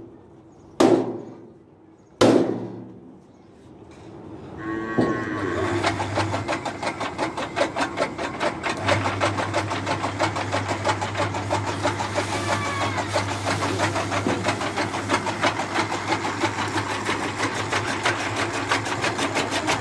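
Two sharp knocks, then about five seconds in an electric chaff cutter starts up: its electric motor and belt-driven flywheel and blades run with a fast, steady clatter and a low hum while green fodder is fed in for chopping.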